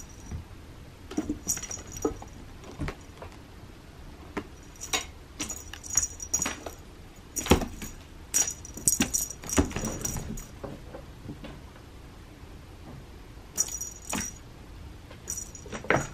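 Small bells on a cat's wand toy jingling in repeated short bursts as the toy is shaken and batted, with a few soft knocks in between.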